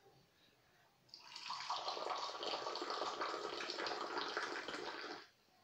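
Moroccan mint tea poured from a teapot held high into a glass: a steady splashing stream that starts about a second in and stops shortly before the end.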